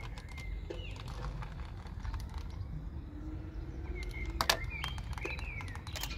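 Small birds chirping over a low steady rumble, with scattered clicks and taps and one sharp knock about four and a half seconds in, as a toy model car is pulled on a string across a wooden tabletop.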